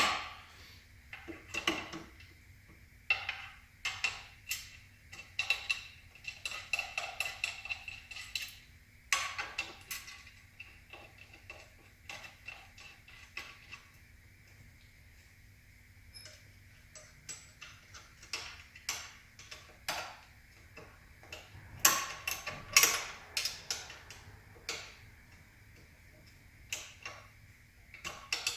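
Irregular metal clicks and clinks of bolts being fitted and tightened with a hand tool, fastening an office chair's tilt mechanism to the seat base. There are quick runs of ticking and a cluster of louder clacks about two-thirds of the way in.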